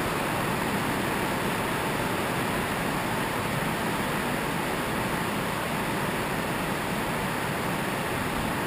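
Steady rushing background noise, even across low and high pitches, with no distinct knocks or tones: the room and air noise of a large gym hall.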